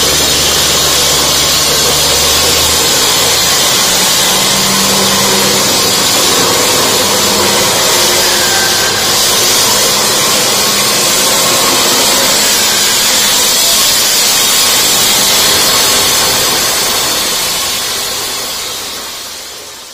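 Single-phase electric concrete cutter with a 12-inch diamond segment blade running steadily as it cuts through a 4-inch reinforced concrete slab, a loud continuous grinding hiss. It fades out near the end.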